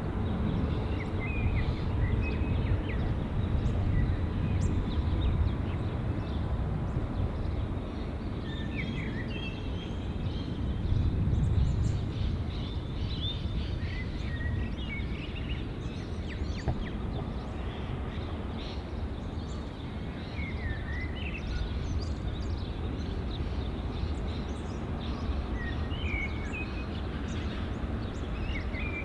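Low, steady rumble of the B and S class diesel locomotives hauling a passenger train from a distance, with short bird chirps now and then over it.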